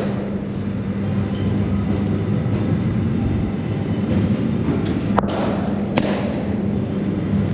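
Cricket bat striking balls in an indoor net: sharp cracks a little after five seconds in and again about six seconds in. A steady low hum runs underneath.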